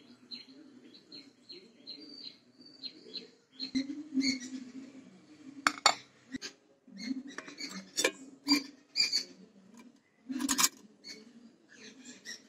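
A small bird chirping quickly over and over for the first few seconds, then irregular clinks and knocks of a steel box and plate being handled as the set butter is turned out.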